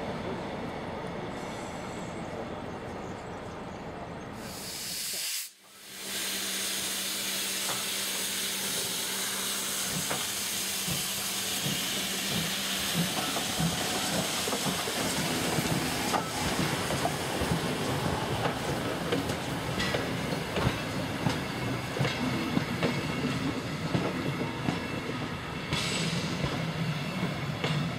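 A class 52 steam locomotive rolling slowly past close by: a steady hiss of steam, then from about ten seconds in a run of wheel clicks over the rail joints. Before it, for about the first five seconds, general rail-yard train noise.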